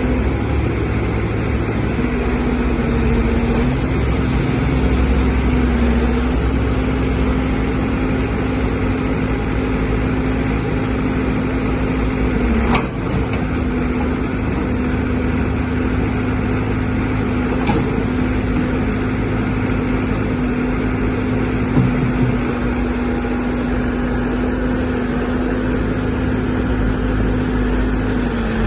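Caterpillar 416C backhoe loader's diesel engine running steadily with an even hum; its pitch dips slightly a few times.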